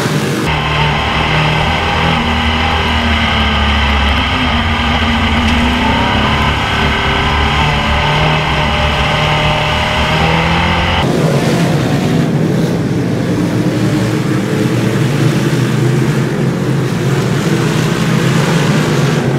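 Dirt modified race cars' V8 engines running at racing speed. For the first ten seconds or so the sound is close and steady, with strong engine tones heard from inside one car. About eleven seconds in it switches abruptly to the rougher drone of the field racing around the track.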